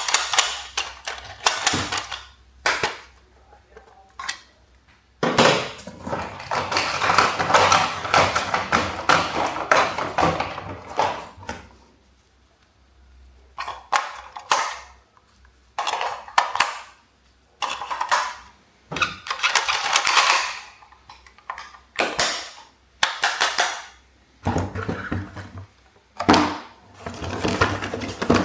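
Plastic toys being handled and knocked together: repeated rattling and clattering in irregular bursts, some brief and some lasting several seconds, with short pauses between them.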